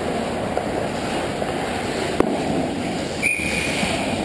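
Ice hockey rink noise of skates and play, with a sharp knock about two seconds in, then a single steady referee's whistle blast of just under a second near the end.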